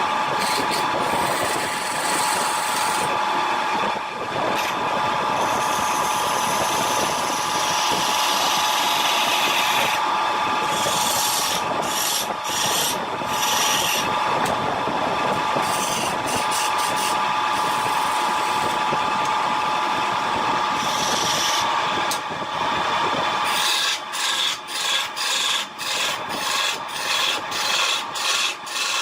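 Wood lathe running with a steady motor whine while the spinning wood is rubbed and scraped. Near the end the sound turns into even back-and-forth strokes, about one and a half a second.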